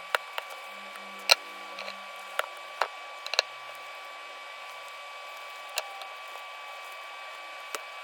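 Scissors snipping through the excess end of a jacket zipper: several sharp, short clicks, most of them in the first three and a half seconds, over a steady hiss.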